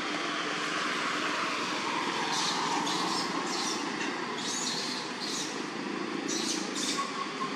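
Steady outdoor background noise with a low hum, joined from about two seconds in by a series of short, high chirps.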